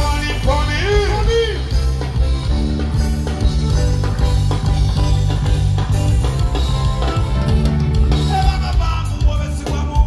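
Live band with drum kit, bass and guitars playing through the stage PA during a sound check. A singer's voice rides over it in the first second or so and again near the end.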